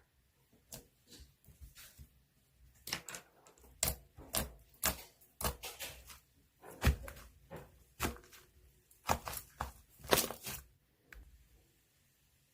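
A run of irregular sharp clicks and light knocks, clustered in the middle few seconds.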